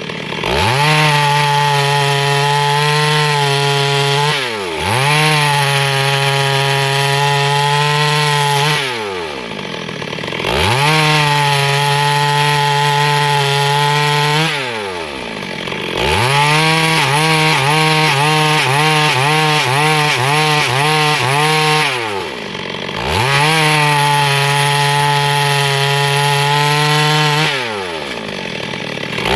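Chainsaw cutting wood at full throttle in repeated runs of several seconds, the engine note dropping briefly between runs. In one run the pitch wavers up and down a few times.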